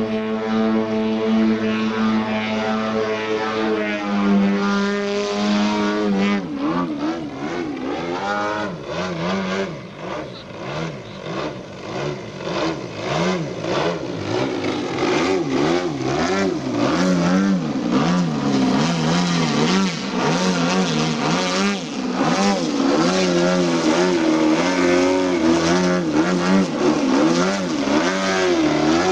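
Desert Aircraft DA 120cc twin-cylinder two-stroke petrol engine and propeller of a large RC aerobatic plane. It holds a steady pitch for about the first six seconds, then its pitch wavers up and down repeatedly as the throttle is worked.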